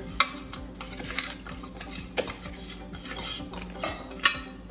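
Metal spoon scraping and clinking against a container while stirring and scooping a thick ground mix, in separate strokes about once a second.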